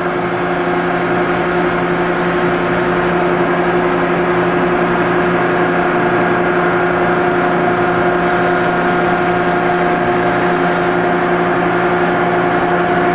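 The Ritter R1200 door clamp's electric rapid-traverse motor runs with a steady hum and whine as it drives the pressure beam up and clear of the clamped door frame. One part of the whine stops right at the end.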